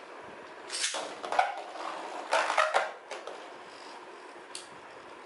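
Two Beyblade Burst spinning tops, Wizard Fafnir and Cho-Z Spryzen, whirring on a plastic stadium floor. They clash with sharp plastic clatters in clusters about a second in and around two and a half seconds in, then once more, lighter, near the end.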